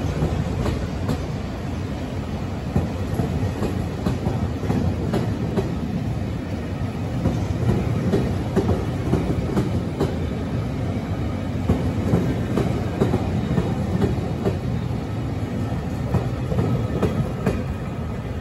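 A multi-car train made up of a 731 series electric set and a KiHa 261 series set passing close by, with a steady running rumble and the wheels clicking over rail joints.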